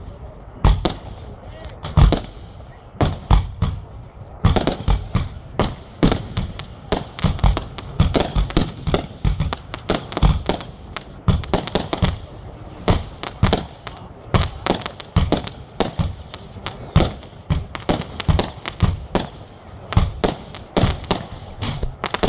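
Aerial fireworks launching and bursting: an uneven string of sharp bangs, a few each second, coming thicker from about four seconds in.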